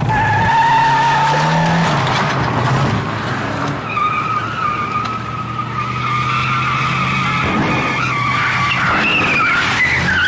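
Car tyres squealing continuously as the car is thrown through handbrake turns, the squeal wavering in pitch, over the engine revving.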